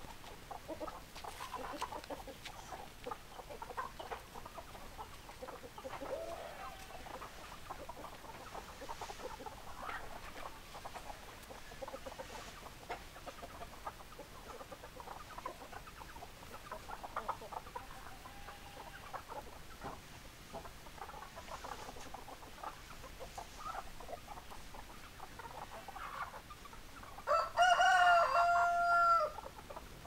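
A flock of chickens clucking off and on, with a rooster crowing once near the end, the loudest sound, about two seconds long.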